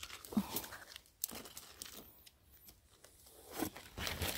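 Faint, intermittent rustling and crackling of dry forest leaves and twigs being disturbed, with a few louder crackles near the end.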